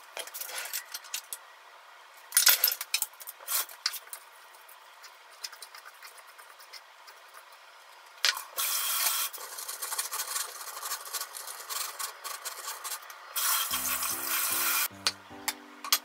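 Light kitchen handling sounds: scattered clicks and taps, then chopsticks tossing shredded carrot in a wooden bowl, a short scraping rustle about halfway through. Background music comes in near the end.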